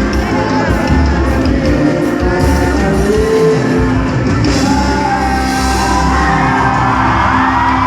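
Live praise band playing loud music with singing over a steady drum beat.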